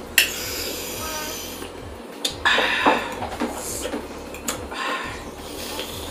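Close-miked eating sounds of spicy instant noodles: a person chewing and slurping, in irregular noisy spells, with a fork working the noodles on the plate.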